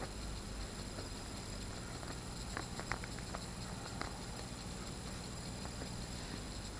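A few faint clicks and light taps, about two to four seconds in, from a small suction cup with a metal ring and plastic pry tools being handled, over a steady background hiss.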